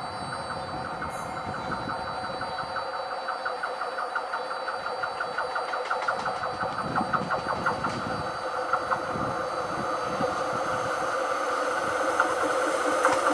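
Two coupled Class 143 Pacer diesel multiple units approaching on a curve: diesel engine drone and steady tones with a fast, even pulse, growing steadily louder.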